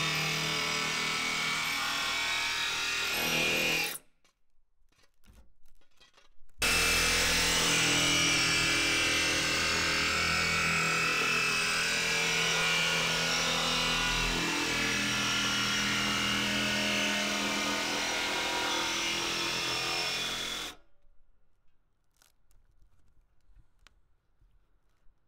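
Electric jigsaw cutting through a van's sheet-steel roof: a steady motor whine with the blade rasping on the metal. It stops about four seconds in, starts again a couple of seconds later and runs about fourteen seconds more before stopping.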